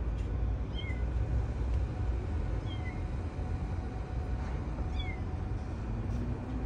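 Kitten trapped inside a car's hood mewing: three short, high meows about two seconds apart, over a steady low background rumble.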